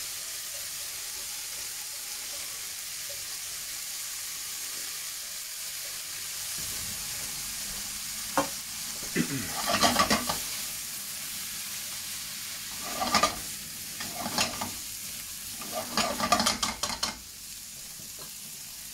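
Prawn fried rice sizzling steadily in a non-stick frying pan. In the second half a spatula stirs and scrapes the rice through the pan in several short bursts, which are the loudest sounds.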